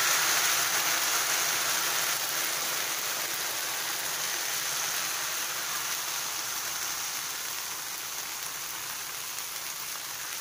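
Thin rava dosa batter sizzling on a hot dosa tawa: an even, crackling hiss that slowly fades.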